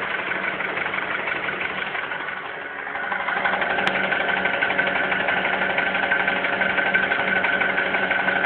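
Honda Accord's K20 2.0-litre four-cylinder engine idling with a knock that the owner complains of, louder from about three seconds in.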